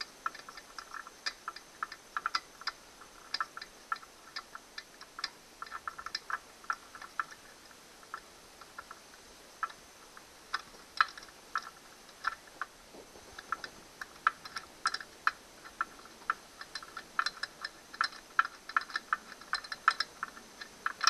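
Ratchet wrench clicking in quick runs of small sharp ticks, with short pauses between strokes, as a bolt is unscrewed from an outboard motor's midsection.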